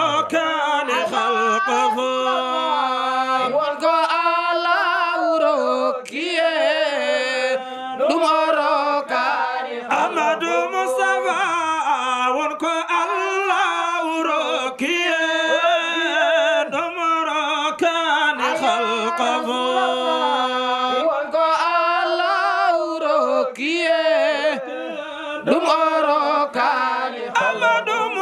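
A man singing an unaccompanied Sufi devotional chant into a microphone, in a wavering, ornamented line with long held notes.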